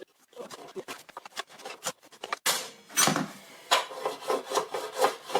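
A piece of timber being handled and knocked into place on a small chop saw: a string of wooden knocks, rubbing and clatter, the loudest hits about two and a half to four seconds in.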